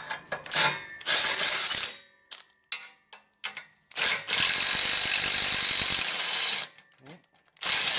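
Cordless Milwaukee M12 Fuel impact wrench running in three bursts, the middle one a steady run of about two and a half seconds. It is backing the spring-loaded flange bolts off an exhaust A-pipe.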